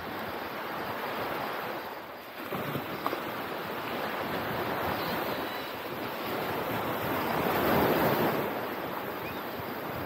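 Ocean surf breaking and washing up the beach, with wind buffeting the microphone. The surf swells loudest about eight seconds in.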